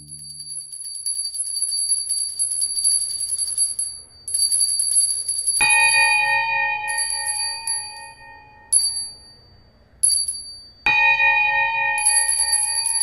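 Bell sound effects: a high, rapidly trilling ring comes in repeated bursts, and a deeper bell is struck twice, about five seconds apart, each stroke ringing on as it fades.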